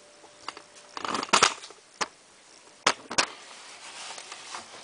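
Tea towel rubbing down the outer casing of a washing machine: several sharp knocks and taps of handling against the panels, then from about three and a half seconds in a steady swishing of cloth wiping the surface.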